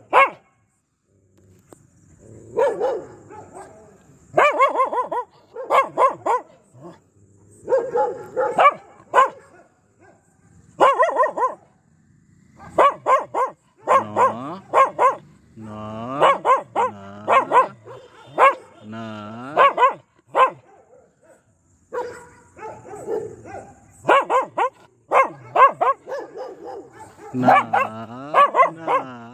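A dog barking aggressively in repeated bursts of barks with short pauses between them.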